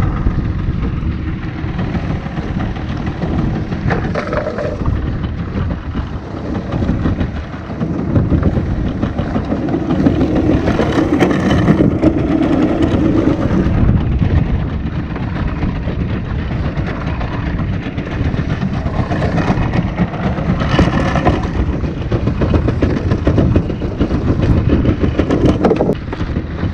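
Wind buffeting the microphone on a small open fishing boat at sea: a loud, uneven low rumble, with a few brief louder moments.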